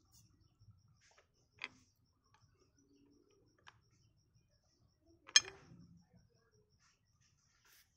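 Faint, regular ticking, with a few sharp clicks or knocks; the loudest knock comes about five seconds in.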